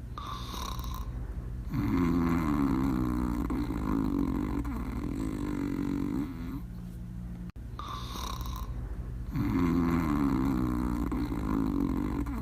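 Dog snoring in its sleep: slow breath cycles of a short, higher-pitched breath in, followed by a longer, lower pitched snore of two to three seconds. There is a brief dropout about seven and a half seconds in, and then the cycle carries on.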